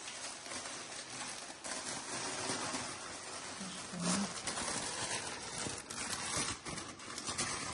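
Clear cellophane wrap crinkling and rustling as hands gather it up and twist it closed around a gift tray, with many small crackles.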